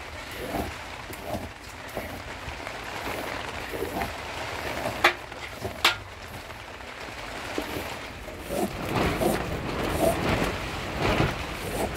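Steady rain in a storm, with two sharp knocks about five and six seconds in and a low rumble building over the last few seconds.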